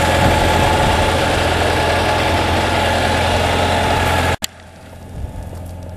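Steady low hum like an idling engine, with a hiss over it, that cuts off suddenly about four and a half seconds in, leaving a much quieter background with a few faint clicks.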